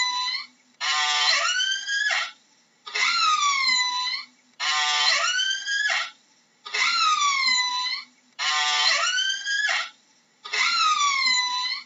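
Orca (killer whale) calls: two kinds of call take turns, one swooping down and back up in pitch, the other buzzy and pulsed. Each lasts about a second and a half, with short pauses between, and the pair repeats about every four seconds.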